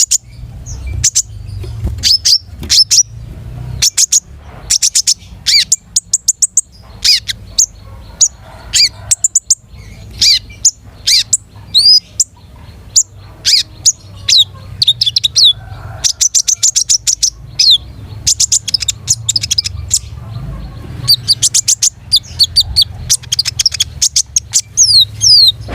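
A konin songbird singing hard: rapid, repeated high chirps and short falling whistled notes in quick bursts, with brief gaps between phrases. A faint steady low hum runs underneath.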